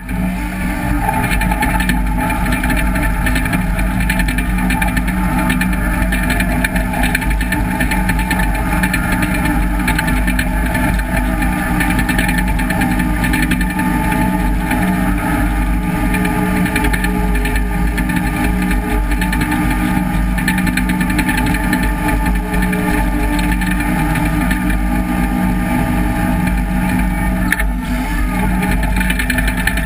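John Deere 850J crawler dozer's diesel engine running steadily under load as the machine pushes dirt with its blade.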